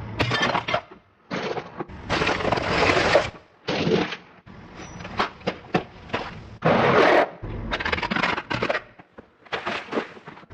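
Objects being crushed under a car's tyres, in a run of short separate takes: bursts of crunching and cracking with several sharp snaps. Some bursts start and stop abruptly.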